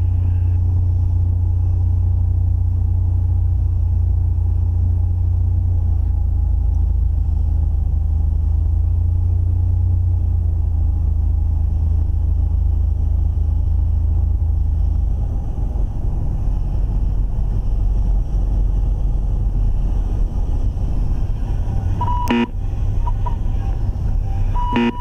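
Cessna 182RG's six-cylinder Lycoming O-540 engine and propeller droning steadily in the cabin on final approach, the drone dropping lower as the power comes back about two-thirds of the way through. Near the end a stall warning horn sounds in short pieces during the flare and touchdown, with a couple of brief knocks.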